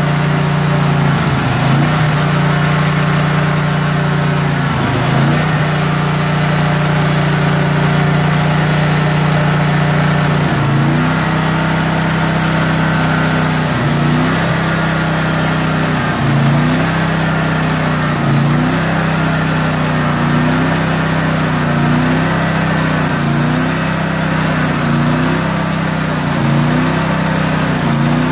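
Engine of a portable band sawmill running steadily while the blade cuts a log. From about ten seconds in, the engine pitch dips briefly and recovers again and again, about every second and a half by the end.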